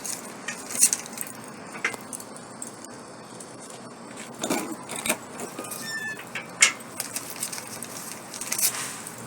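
Freshly lit paper kindling and charcoal in a small barbecue stove crackling and popping: irregular sharp snaps, a few louder than the rest, over a low hiss.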